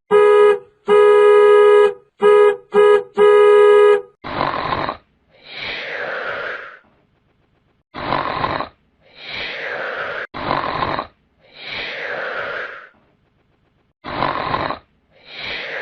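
A horn-like buzzing tone honks four times, one long and three short. It is followed by a cartoon snoring sound effect: rasping snore inhales alternate with breathy exhales that fall in pitch, about four times over.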